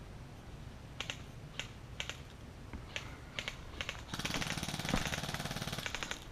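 Footsteps crunching on dry grass and twigs, a few sharp crunches a second. About four seconds in, a dense, fast rattle sets in and keeps going.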